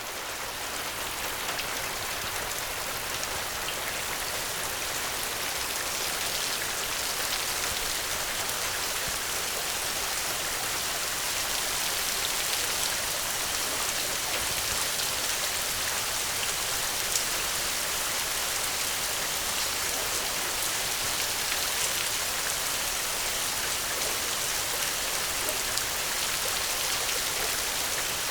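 Steady rain falling, a continuous hiss of drops with scattered individual drop ticks, faded in at the start.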